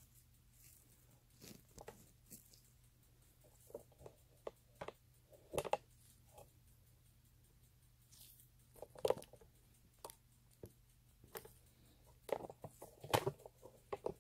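Faint, scattered handling noise of a handheld camera being moved and steadied: irregular light taps, clicks and rustles, a few a little louder, over a low steady hum.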